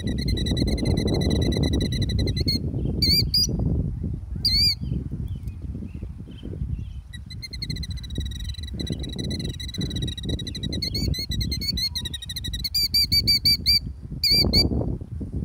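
Killdeer giving alarm calls at its nest: long, high, rattling trills broken by sharp rising-and-falling notes, with a fast run of sharp notes near the end. A steady low rumble runs underneath.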